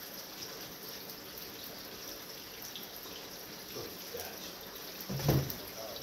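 Oil bubbling and sizzling steadily in the steel pot of a propane turkey fryer, with a brief voice near the end.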